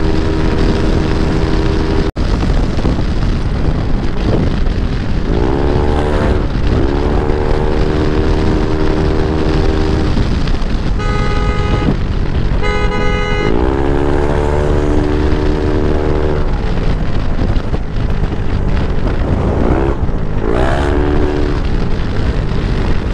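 Single-cylinder engine of a Yamaha NMAX scooter bored to 195cc, running under way over road and wind rumble, its pitch climbing as it accelerates three times. A horn sounds in two short blasts about halfway through.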